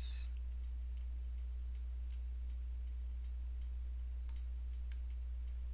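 Steady low electrical hum under the recording, with a short hiss at the very start and a few faint computer mouse clicks about four and five seconds in.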